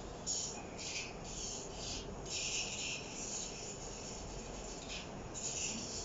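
Hand nail file rasping on a large parrot's claws in repeated back-and-forth strokes, each a fraction of a second to nearly a second long, with short pauses between. The claws are being filed down because they are overgrown and too sharp.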